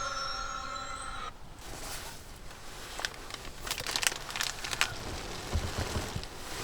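Steady tones from a phone's speaker playing a show stop abruptly about a second in. They are followed by crinkling and rustling with a few sharp clicks, like fabric or a sleeping bag being handled.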